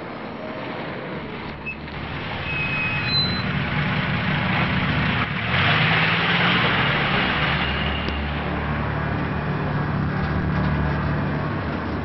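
Truck engine running as the truck approaches, growing louder and loudest about six seconds in, then running steadily.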